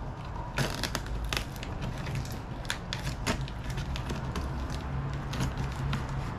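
Packaging being handled while a box of fabric is unpacked: a run of irregular sharp crackles and crinkles.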